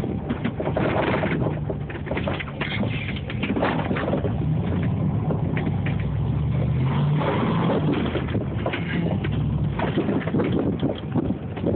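Dodge Dakota pickup's engine running, its note rising a little about six to seven seconds in, under a steady rushing noise of wind and tyres in snow.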